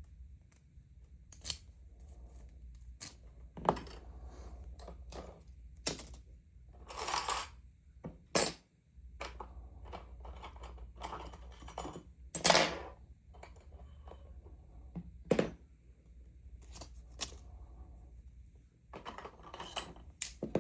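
Handling of a lock and small metal tools on a hard surface: scattered clicks and knocks with a few short scrapes.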